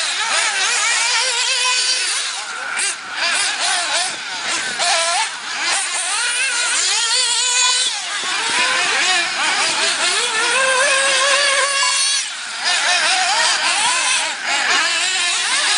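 Several 1/8-scale nitro RC buggy engines racing together, each one a high-pitched whine that rises and falls over the others as the cars throttle up on the straights and back off into the corners.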